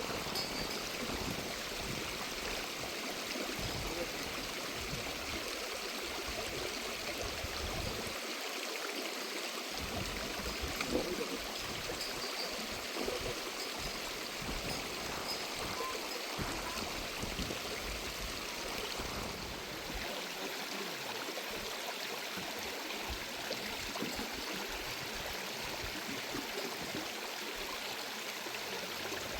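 Stream water running steadily, an even rushing that does not let up.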